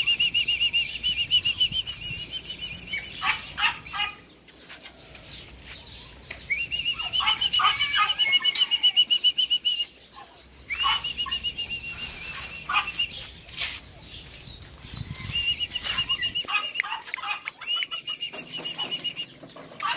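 High, wavering animal calls, each held about three seconds, four times over, with quick rattling notes around them.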